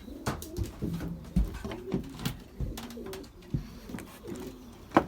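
Racing pigeons cooing in the loft, low wavering coos over one another, with scattered light clicks and knocks and one sharp louder knock near the end.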